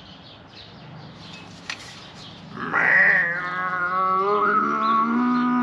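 A long, drawn-out animal cry starting about two and a half seconds in. It holds a steady pitch for about three seconds, then drops sharply in pitch as it ends.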